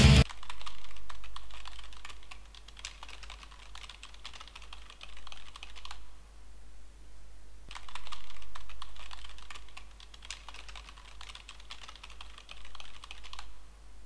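Computer keyboard typing, keys clicking rapidly in uneven runs with short gaps, with two louder stretches about a second in and about eight seconds in.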